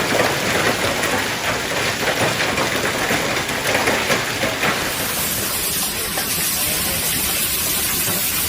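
Heavy rain pouring down steadily, its sound changing abruptly about five seconds in.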